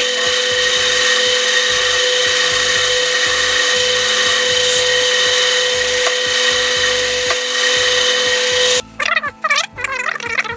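Metal lathe running with its chuck spinning together with a high-speed grinding spindle: a steady whine over a strong hiss. It cuts off about nine seconds in.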